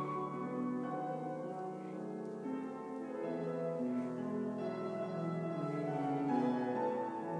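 Grand piano playing classical music, with held notes and chords that change every second or so.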